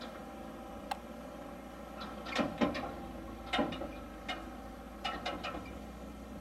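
A Land Rover Defender towing an unbraked water bowser down a rough dirt track: a low steady engine rumble under irregular clanks and knocks, most of them between two and five and a half seconds in, from the loaded trailer and hitch jolting over the bumps.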